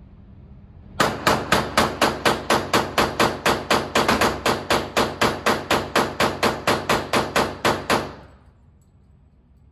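Glock 22 Gen 4 pistol fired rapidly in semi-auto, about four shots a second for some seven seconds without a pause, then stopping. A long string fed from an extended ETS magazine with no stoppage.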